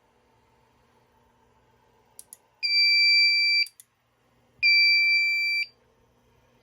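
Two faint clicks, then a fire alarm panel's sounder beeping a steady high tone three times, each beep about a second long with a second between. It is the Notifier NFW2-100 panel signalling its recurring malfunction, which the owner blames on a fault in the panel's circuit board.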